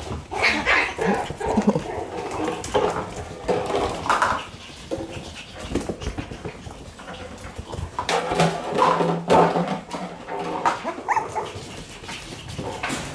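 One-month-old Shiba Inu puppies making high-pitched puppy calls in several bursts while they play, with short clicks and knocks scattered between the calls.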